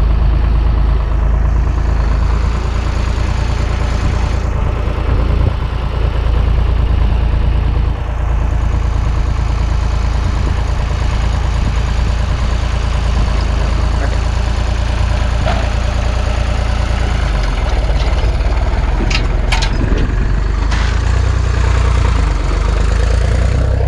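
Tractor engine running steadily under load as it handles hay bales, with a few sharp knocks about three-quarters of the way through.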